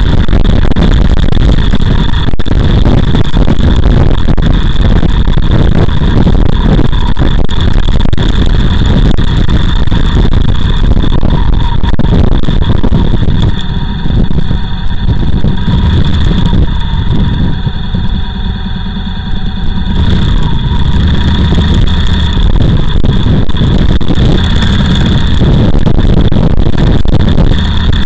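Motorcycle engine running under way with heavy wind buffeting on the microphone, recorded from the bike itself. The sound eases and drops in level for several seconds past the middle as the bike slows behind a car at a roundabout, then picks up again.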